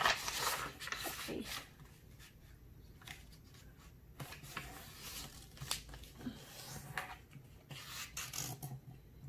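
A sheet of A4 paper rustling and rubbing under the hands as it is folded in half and the fold pressed flat. It is loudest in the first second and a half, then goes on in softer short scratchy strokes.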